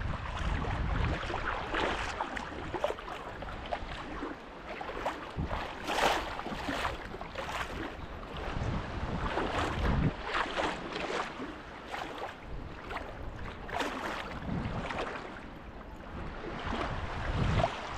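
Water sloshing and swishing around a person's legs as they wade out through shallow surf, in irregular surges with each step, with wind rumbling on the microphone.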